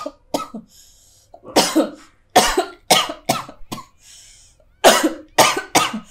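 A woman coughing in a fit of about ten harsh coughs, in three bouts with short pauses between them. It is the coughing of a woman whose health is failing.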